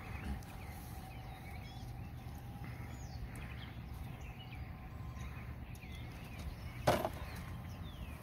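Faint bird chirps over a steady low outdoor rumble, with one sharp knock about seven seconds in.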